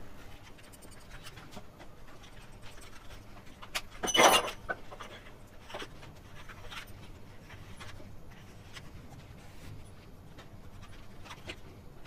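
Knife cutting a set besan slab into pieces in an oiled plate: faint scattered taps and scrapes, with one louder half-second sound about four seconds in.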